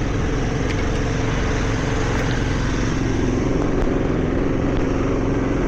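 A motor running steadily in the background, a low even drone that does not change.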